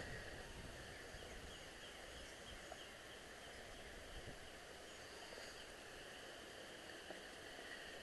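Quiet woodland ambience: a steady faint outdoor hiss with distant bird chirps, and a few soft footsteps on the trail.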